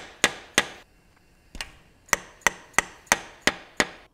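About ten sharp, ringing metal taps, roughly three a second, with a pause of about a second after the first few: a valve stem seal installer tool being knocked down to seat a new valve stem seal on a valve guide of a BMW M70 V12 cylinder head.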